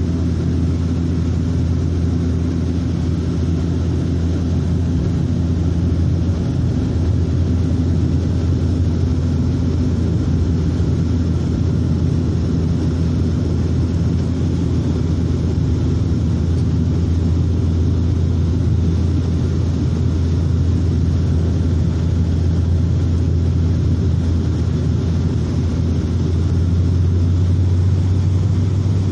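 Cabin noise inside a Bombardier Q400 turboprop airliner on approach with its landing gear down: a steady low propeller hum over a wash of engine and air noise. Near the end the hum rises slightly in pitch and gets a little louder.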